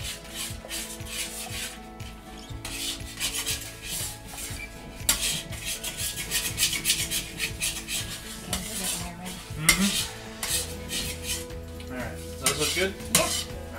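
A metal utensil scraping and stirring against a round-bottom wok while eggs are scrambled in hot oil: irregular runs of quick scrapes, with a sharper knock about ten seconds in.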